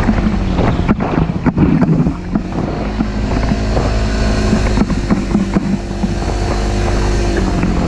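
Side-by-side UTV engine running at a steady pace while driving a sandy dirt trail, with wind on the microphone. Sharp knocks and rattles come from the vehicle's body and cage over bumps in the first couple of seconds.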